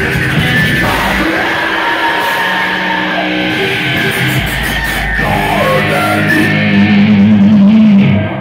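Live rock band playing loudly, electric guitar to the fore over a heavy backing, swelling near the end and then stopping abruptly.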